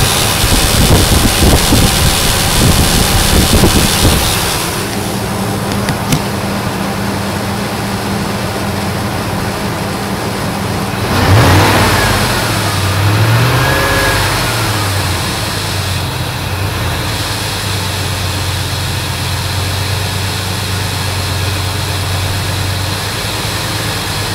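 5.4-litre engine running with a buzzing noise that the owner cannot identify. A loud, rough noise for about the first four seconds, then a steady low hum at idle, with a brief rev up and back down about halfway through.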